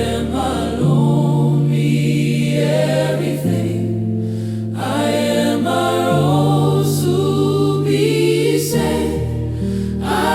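Gospel choir singing a slow, sustained song with long held chords that change every couple of seconds over a steady low bass line.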